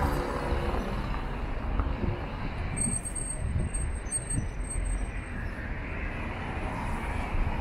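Road traffic: a car passes close at the start, its engine hum fading, then a steady traffic rumble.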